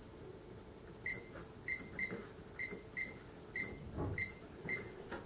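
Sam4S NR-510F cash register's keypad beeping once for each key press as a product name is keyed in: about eight short high beeps at an uneven typing pace, with soft key taps underneath.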